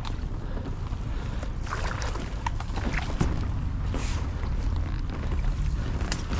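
Paddling a small boat down a creek: scattered short splashes and knocks over a steady low rumble of wind on the microphone.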